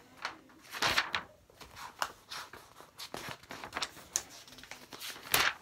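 Paper rustling and soft knocks as colouring-book pages are turned and handled, with the loudest rustle about five seconds in.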